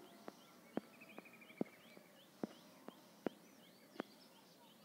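Faint background sound of small high chirps repeating about three times a second, with a brief rapid trill about a second in, and about eight sharp clicks at irregular intervals.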